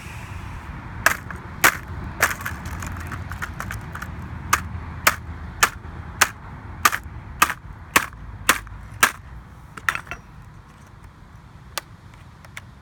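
A hammer striking a MacBook laptop in a steady run of sharp blows, about two a second, followed by two fainter knocks near the end.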